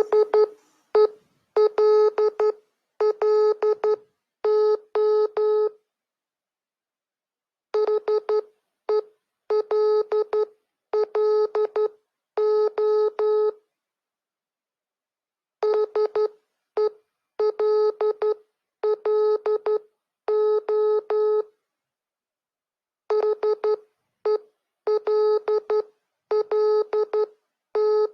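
Morse code sent as short and long beeps of a single low tone, spelling HELLO (.... . .-.. .-.. ---). The word repeats four times with pauses of about two seconds between.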